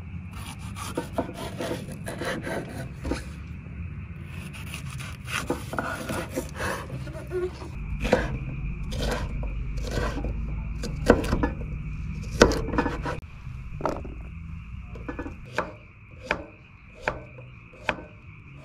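Chef's knife chopping red bell pepper and zucchini on a wooden cutting board: irregular sharp knocks of the blade on the wood, some brief and spaced out near the end.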